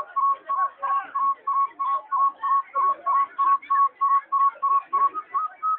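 A whistle sounding one short high note over and over, about three times a second, stepping up slightly in pitch near the end, over fainter scattered background sound.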